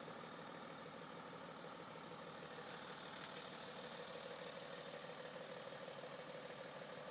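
Diesel car engine idling after a cold start, faint and steady, with a level hum in it that grows a little louder about halfway through.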